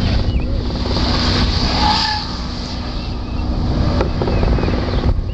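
A Nissan Leaf electric car driving an autocross course: its tyre and road noise over a steady low hum and a rumble of wind on the microphone.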